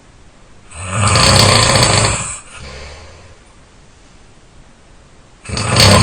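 A person snoring loudly. One long snore comes about a second in, with a fainter breath trailing after it, and a second loud snore starts near the end.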